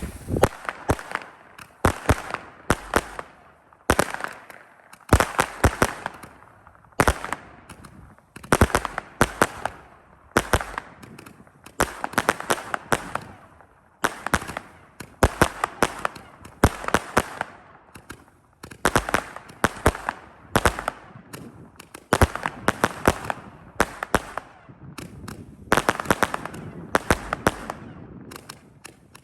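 Sunwing Billy's Big Blast, a large 78-shot Roman candle barrage, firing salute reports: loud bangs in quick clusters of several shots, one cluster about every second.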